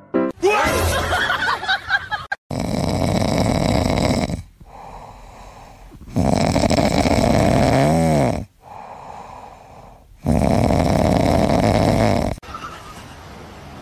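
Orange tabby cat snoring loudly in its sleep: three long snoring breaths about four seconds apart, with quieter breaths between them. The middle snore has a short whistling note near its end. A brief, different wavering sound comes in the first two seconds.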